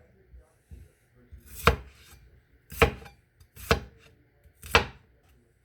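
Kitchen knife chopping potatoes on a cutting board: four sharp knocks of the blade striking the board, about one a second.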